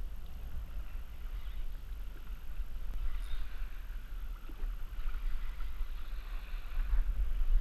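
Wind rumbling on the camera microphone over water sloshing against a plastic kayak hull on a choppy sea. The rumble swells briefly near the end.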